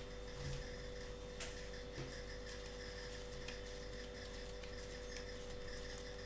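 Faint, irregular soft taps and rubbing of hands shaping a ball of pizza dough on a countertop, over a steady low hum.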